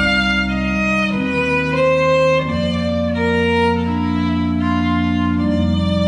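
Violin playing a melody over sustained low accompanying notes that change about every two and a half seconds.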